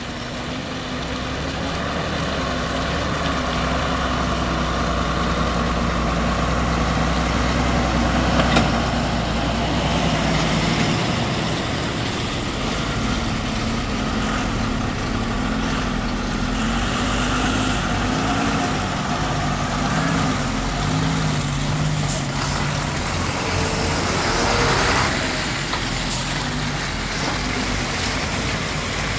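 Diesel engines of heavy trucks, including a tanker truck, running at low speed as they crawl past close by, their pitch wavering. A few short sharp sounds and hisses, typical of air brakes, cut in over the engines.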